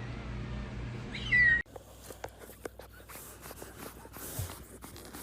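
A house cat gives a short meow over a steady low hum about a second in. Then the sound cuts off abruptly, leaving faint scattered clicks and taps.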